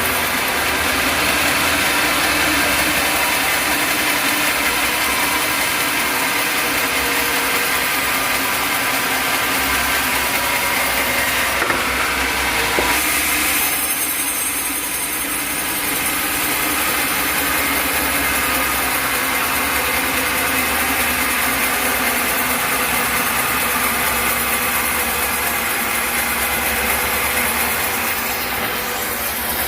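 Sawmill machinery running steadily: an engine-driven saw rig humming and whirring, with a short shift in its sound about twelve seconds in.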